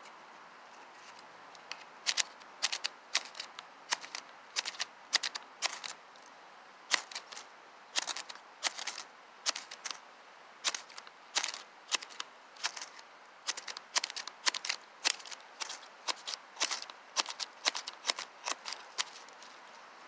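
Knife blade scraped hard along the small ferrocerium fire-starter rod of an Ozark Trail 6-in-1 multitool: quick rasping strikes, about two a second with short pauses, starting about two seconds in. The rod throws only weak sparks and the strikes fail to light the tissue paper.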